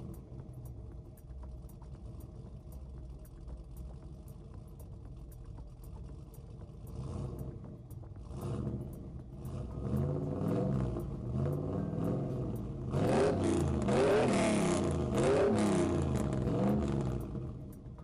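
A heavy vehicle's engine running with a steady low rumble, then revving up and down repeatedly and getting louder in the second half, before dropping away near the end.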